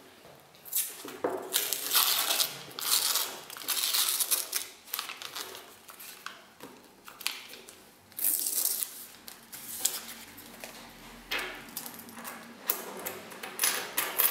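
Paper wrapper being torn and crinkled off a roll of 10 Rappen coins, in irregular bursts, with the stacked coins clinking against each other as they are worked free.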